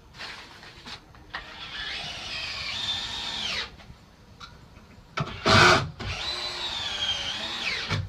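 Power drill driving long screws into timber roof framing: two runs of a motor whine, each about two seconds, the pitch climbing under load and dropping away as the drill stops. About halfway through, a short, loud burst of noise.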